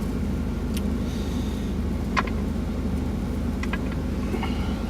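Semi truck's diesel engine idling with a steady low rumble, with a few light clicks and taps from small plastic camera gear being handled, the sharpest about two seconds in.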